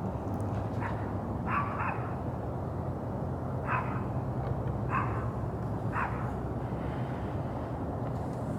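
Short, high-pitched animal cries, about six of them spaced a second or so apart, over a steady low hum.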